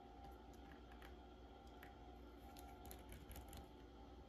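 Near silence: scattered faint small clicks of hand tools on a watch movement as a screw is fitted, over a low steady hum.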